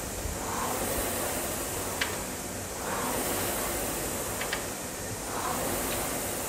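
Concept2 air rowing machine: its fan flywheel whooshes, swelling and fading with each stroke about every two and a half seconds, with a short click once per stroke.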